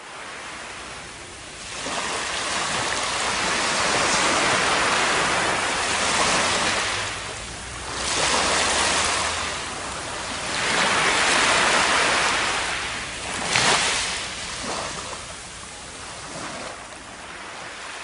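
Surf washing up on a sandy beach: the rush of water swells and fades as several waves come in and draw back, with a brief sharper splash a little past the middle.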